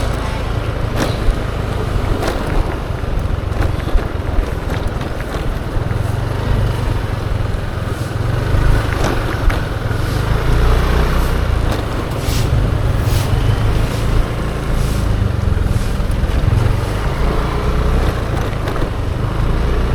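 Yamaha Aerox 155 scooter's single-cylinder engine running on a ride through city traffic, with steady wind rumble on the microphone.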